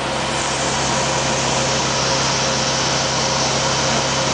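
Steady drone of a military truck's engine idling, with a constant low hum and a hiss that brightens slightly just after the start.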